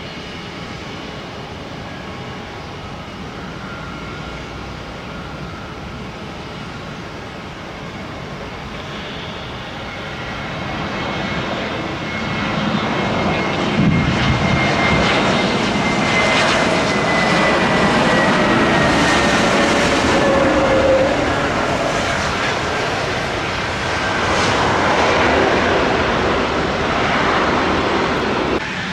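Airliner passing close by: its engine noise builds over about ten seconds and stays loud, with an engine whine that slowly falls in pitch as it goes past.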